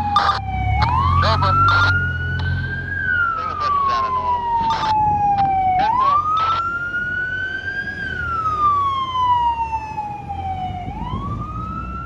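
Electronic siren on an FDNY EMS truck sounding a slow wail: the pitch climbs quickly, then falls slowly, repeating about every five seconds. Several short horn blasts come in the first half, over the truck's low engine rumble.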